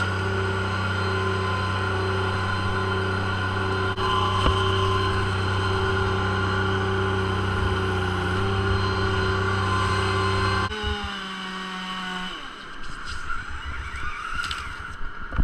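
An engine running at a steady high speed for about ten seconds, then dropping off sharply and winding down over the next second or so.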